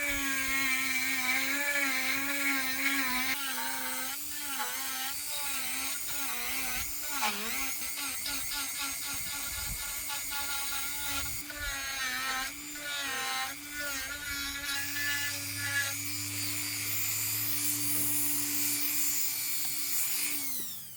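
A high-speed power carving tool running steadily in wood, its high whine wavering and briefly dipping in pitch as it bites, while it hollows out a carved wooden ear. It stops near the end.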